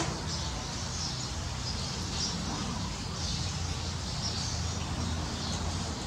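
Steady rain falling on leaves and gravel, with runoff pouring from an overhead edge, and a few short bird chirps about once a second.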